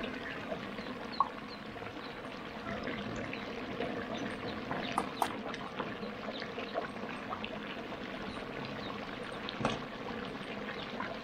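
Pork frying in a large pan: a steady sizzle with many small scattered crackles.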